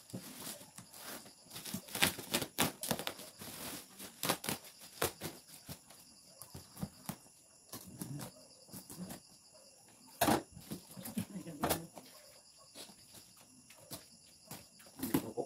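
Irregular rustling, tapping and knocking of cardboard boxes and plastic packaging being handled during an unboxing, with the loudest knock about ten seconds in.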